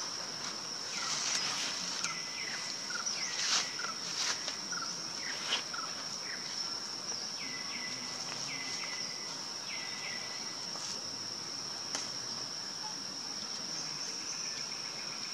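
Steady high-pitched insect drone, with a few short falling chirps in the first half and occasional sharp clicks.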